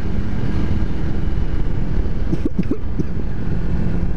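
125 cc motorcycle engine running steadily on the move, with wind noise on the helmet-mounted microphone. A few short wavering sounds come through around the middle.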